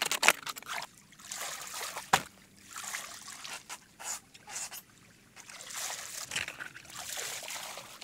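Water sloshing and trickling around split banana trunks as they are pushed and handled in shallow floodwater, in irregular swells, with one sharp knock about two seconds in.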